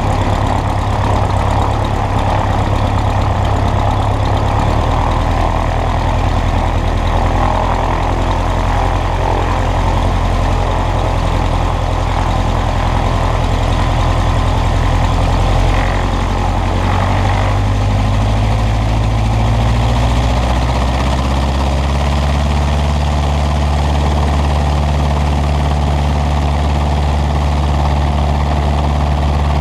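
The Cessna 120's light-aircraft piston engine runs steadily at low power. Between about 17 and 21 seconds in, its note rises slightly and then settles into a different steady drone.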